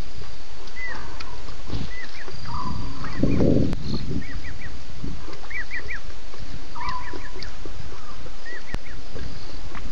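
Frogs calling in a night chorus: short rising chirps, often in quick runs of three or four, mixed with lower, drawn-out calls, over a steady low rumble. A brief low, rough sound stands out about three seconds in.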